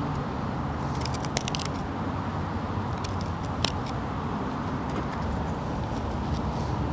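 A few light clicks and scrapes of a flathead screwdriver picking grease and debris from around a grease fitting on a steel wheel-lift crossbar, over a steady low hum.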